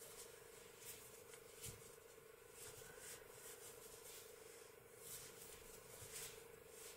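Near silence: faint rustles of a crochet hook being worked through chunky t-shirt yarn, over a steady low hum.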